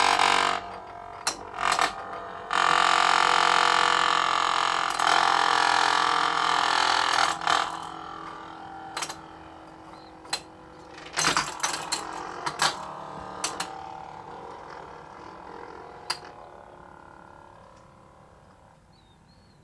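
Wiz-z-z-er spinning top whirring loudly in a few bursts as it is revved by rubbing its tip along a surface, then spinning and slowly dying away, with a handful of sharp knocks along the way.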